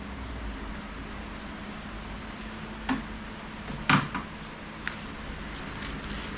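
Steady hum and hiss of a small room, broken by two short knocks about three and four seconds in, the second louder, and a faint click soon after.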